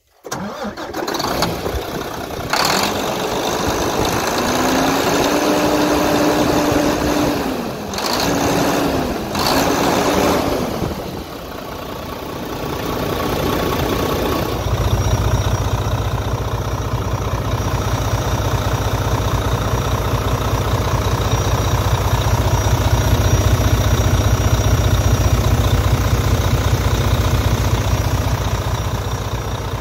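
Volvo VED13 inline-six truck diesel running with the hood open. It is revved up and held once, then blipped twice in quick succession. About halfway through it settles into a steady, deep idle.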